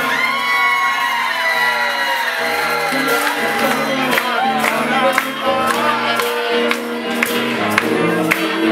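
Small live band playing: acoustic guitar and congas over low bass notes, with sharp percussion hits setting a steady beat from about three seconds in. Crowd cheers and whoops at the start.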